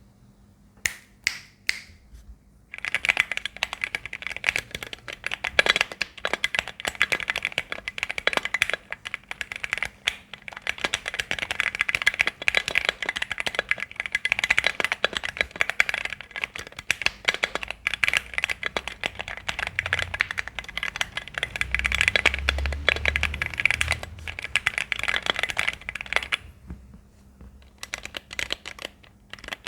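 Custom mechanical keyboard in a Tofu60 case with Akko Jelly Black linear switches and Durock screw-in stabilizers being typed on: a few single keystrokes, then a long run of fast continuous typing with some deeper thumps partway through, then it stops and a few last keystrokes follow near the end.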